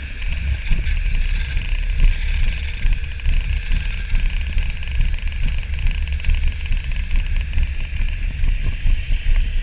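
Wind buffeting an action camera's microphone: a loud, uneven low rumble over a steady hiss.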